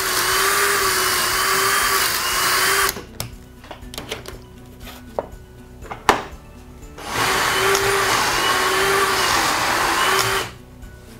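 Cordless drill driving a pocket-hole drill bit into a board through a pocket-hole jig, twice, each run lasting about three seconds with a steady motor whine, the second starting about seven seconds in. Between the two, clicks and knocks as the jig's clamp is released, the board slid along and clamped again.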